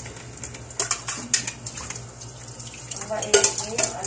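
Dishes and cutlery clinking and clattering in a stainless steel sink as they are washed by hand, with the loudest clatter a little after three seconds in.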